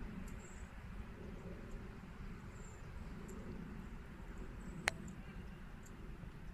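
Low rumble of wind on the microphone, with faint short high bird chirps now and then and one sharp click about five seconds in.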